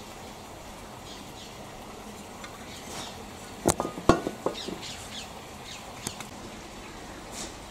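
Two small pressed-steel Mamod traction engine coal scuttles set down on a wooden table: two sharp metallic clacks about halfway through, followed by a few lighter rattling taps.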